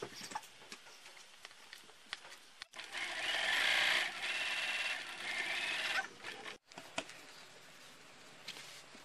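Sewing machine stitching steadily for about three seconds, starting and stopping abruptly in the middle; before and after it, faint clicks and handling sounds.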